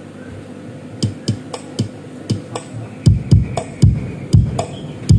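Recorded music with a drum beat, played back through an audio mixer and power amplifier during a sound check. Light percussion taps start about a second in, and a heavy kick drum pattern comes in about three seconds in, several hits a second.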